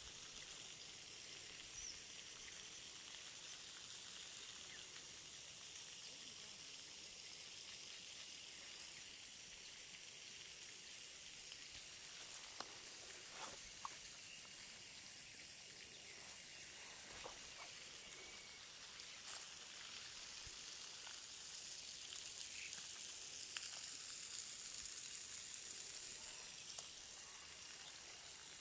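Faint, steady high-pitched outdoor hiss, with a few short clicks and faint chirps about halfway through.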